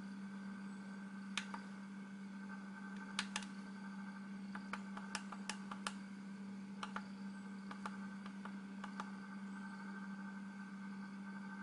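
Push buttons on a hobby LiPo battery charger being pressed repeatedly: a dozen or so short clicks at irregular intervals, some in quick pairs, over a steady low hum.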